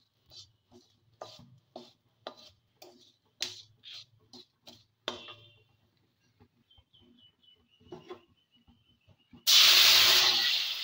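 Wooden spatula stirring and scraping whole spices (panch phoron and a dried red chilli) in hot oil in a karai, about two strokes a second. Near the end, boiled vegetables with their cooking water are poured into the hot tempering and set off a sudden loud sizzle.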